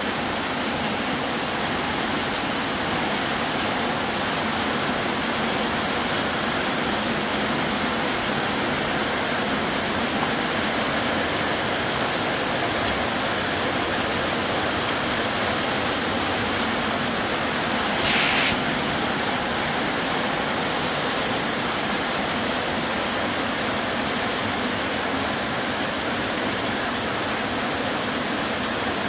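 Heavy rain pouring down steadily, a dense, even hiss of downpour. About two-thirds of the way through there is a brief, louder, higher hiss lasting about half a second.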